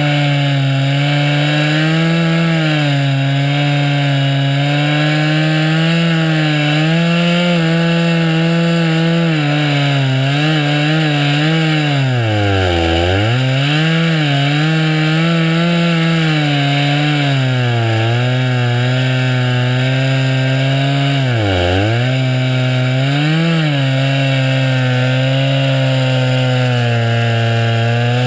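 Two-stroke chainsaw running at high speed while ripping a slab along a blue spruce log. Its pitch sags sharply twice as the engine bogs under the cut, about halfway through and again later, then picks back up.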